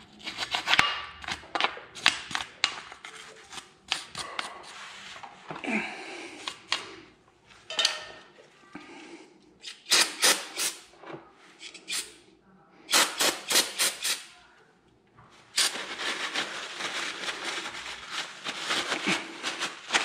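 Scraping and scrubbing at a metal brake caliper bracket, with clicks and knocks of metal, then several short hissing bursts from an aerosol spray can of cleaner. A longer steady hiss follows near the end.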